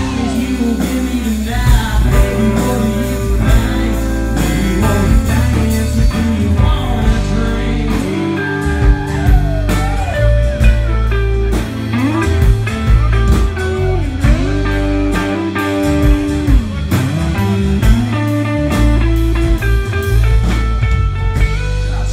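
A live country rock band playing through a PA: electric lead guitar with bending notes over drums, bass and strummed acoustic guitar.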